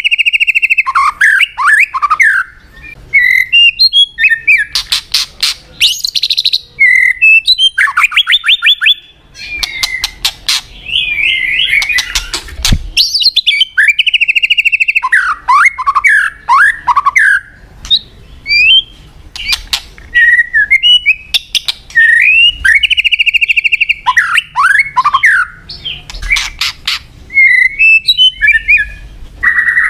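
White-rumped shama (murai batu) singing a loud, varied song. Clear whistled notes sweep up and down, held buzzy notes drop into falling phrases, and quick chattering trills come in bursts with short pauses between phrases.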